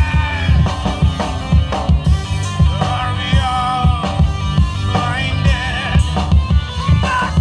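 Live rock band playing: a singer's voice over electric guitars, bass guitar and a drum kit, amplified through the stage speakers.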